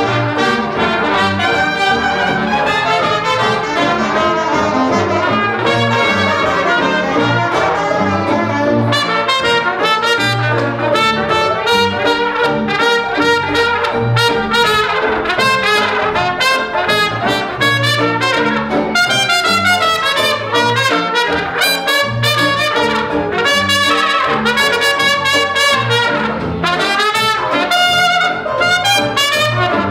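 Live Dixieland jazz band playing, with a cornet taking the lead over a rhythm section of banjo, piano and string bass.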